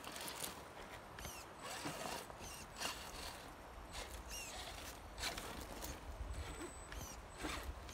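Redcat Gen8 Scout II RC rock crawler working its way over dirt and rock. Its electric motor and gear drive whir in short, repeated bursts, and its tyres crunch and scrape.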